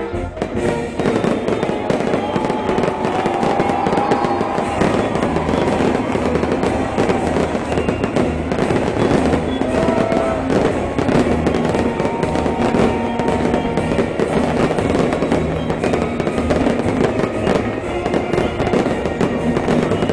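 Aerial fireworks going off in a rapid, continuous barrage of bangs and crackling, with music playing along.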